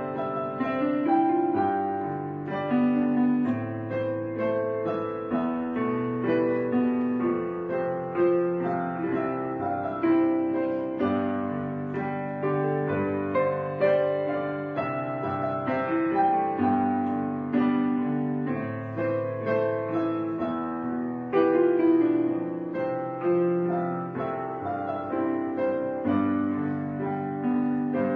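Background piano music, its notes and chords changing about every second.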